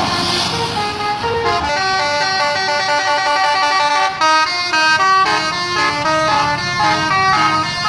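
Bus 'telolet' horn, a set of multi-note air horns, playing a quick tune of short notes that step up and down in pitch.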